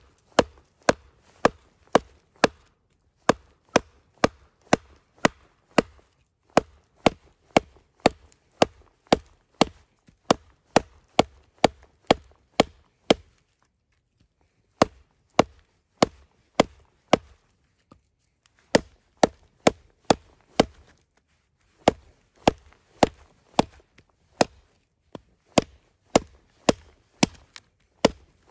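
Batoning: a wooden stick knocking on the spine of a large knife blade set across a small round of wet wood, sharp knocks about two a second with two short pauses midway. The blade is barely driven into the wood, too wet to split easily.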